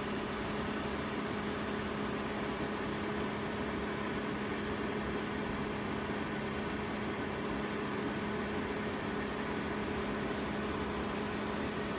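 Tower-style air-cooler fan running steadily: an even rush of air with a constant low motor hum.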